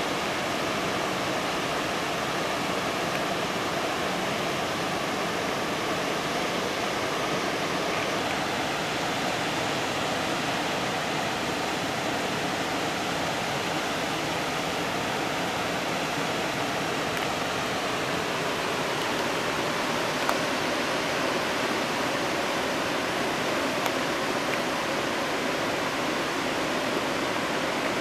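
Floodwater rushing through a desert wash and across a road: a steady, unbroken rush of fast-running muddy water.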